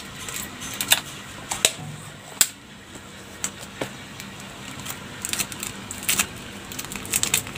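Plastic bottle, cap and clear hose being handled: scattered sharp clicks and crackles, a few at first and then coming thick and fast in the last couple of seconds.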